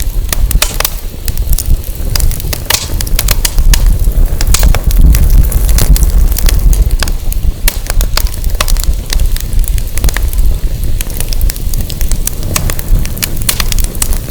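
Wood fire burning, crackling with frequent sharp pops, over a strong low rumble of wind.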